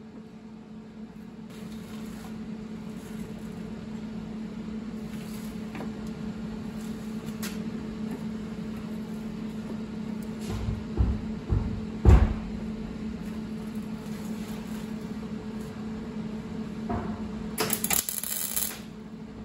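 MIG welder tack-welding sheet steel into the rusted rear wheel arch of the quarter panel: a short crackling burst of about a second near the end. Before it come a few knocks and one sharp thump from the panel being handled, over a steady low hum.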